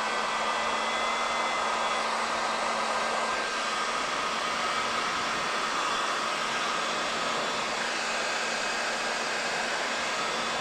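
Electric heat gun running steadily, a constant blowing whir with a faint hum, as hot air is passed over freshly installed paint protection film to dry out and set its edges.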